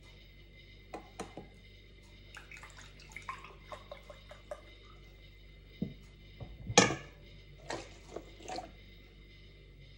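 Milk poured from a carton into a drinking glass, trickling, then poured from the glass into a stainless steel mixing bowl, with louder splashes from about six seconds in, the loudest near seven seconds. A few light clicks of the carton and glass being handled about a second in.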